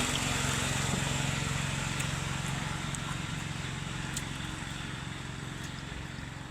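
A motor engine running steadily and growing gradually fainter.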